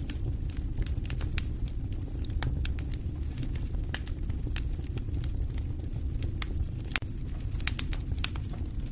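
Fire in a fireplace crackling, with irregular sharp pops and snaps over a low steady rumble.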